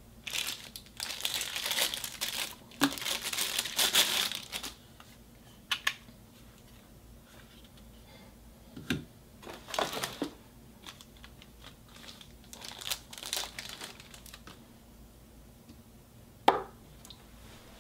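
Plastic packaging bag crinkling and rustling as a camera battery charger is pulled out of it, mostly over the first five seconds. This is followed by scattered light clicks and rustles as the charger and battery are handled.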